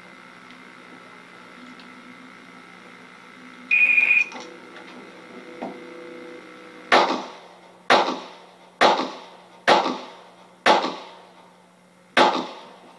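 An electronic shot timer beeps once for about half a second as the start signal, and about three seconds later a Glock 21 .45 ACP pistol fires six single shots about a second apart, the last after a slightly longer pause. The sound is boxy, replayed through a television's speaker.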